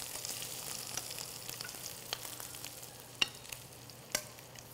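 Shrimp sizzling in hot olive oil and butter in a stainless steel sauté pan, browning. Metal tongs clicking against the pan a few times as the shrimp are turned.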